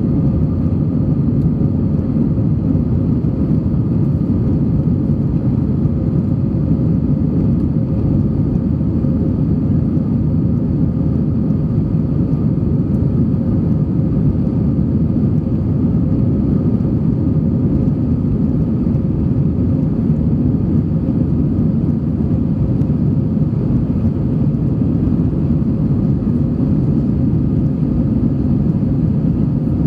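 Steady cabin noise of a jet airliner climbing after takeoff: a deep, even rumble of engines and rushing air with a faint steady hum on top.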